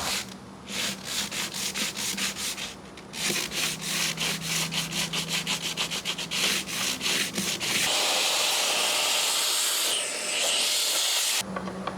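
Sandpaper rubbing on wooden trim pieces in quick back-and-forth strokes, several a second. About eight seconds in, the strokes give way to a steady sanding hiss that cuts off shortly before the end.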